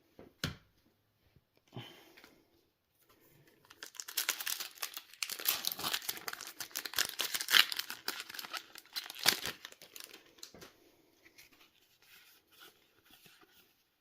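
Foil Yu-Gi-Oh booster pack being torn open and its wrapper crinkled, a dense crackling of foil for several seconds with one sharp loud crackle near the end of it, then faint rustling of cards.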